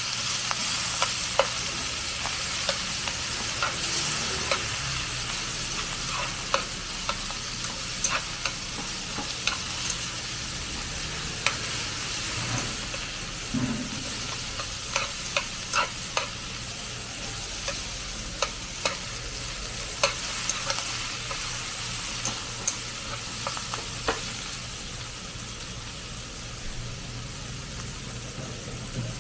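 Instant noodles, beef and vegetables sizzling steadily in a hot wok while being stirred and tossed with chopsticks, which click and scrape against the pan many times. The clicking stops near the end, leaving the sizzle alone.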